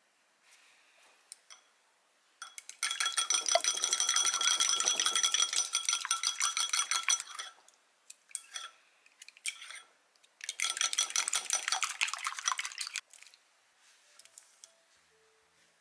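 Eggs being beaten in a ceramic bowl: a utensil clinks rapidly and steadily against the bowl, which rings. There are two spells, a long one starting about two and a half seconds in and a shorter one about ten seconds in.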